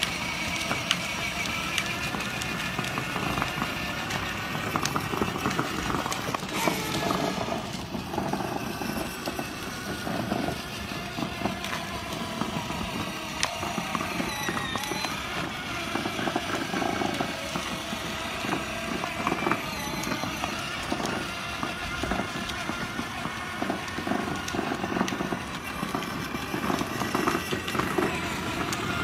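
Battery-powered ride-on toy car driving along asphalt: its electric motor and plastic wheels rolling steadily, with scattered crackles. Music plays along with it.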